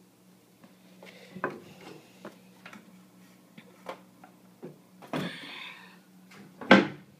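Scattered clicks and knocks, with a short scraping burst about five seconds in and the loudest knock near the end, over a steady low hum.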